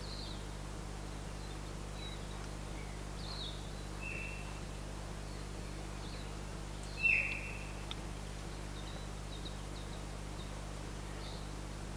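Forest birds calling: scattered short high chirps and whistles, the loudest a short call that falls off at the end about seven seconds in, over a steady low hum.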